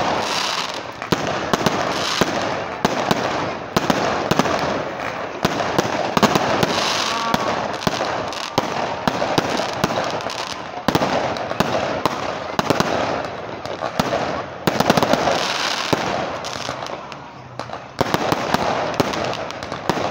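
Aerial fireworks bursting one after another, a dense run of sharp bangs and crackles.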